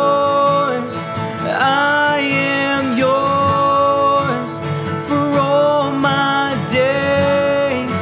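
A man singing a worship song in long held notes that slide between pitches, with a strummed steel-string acoustic guitar.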